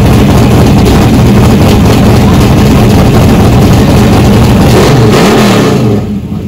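Supercharged V8 in a hot-rodded Ford Maverick running at a loud, rough, lumpy idle. Near the end the revs dip and the sound drops off sharply.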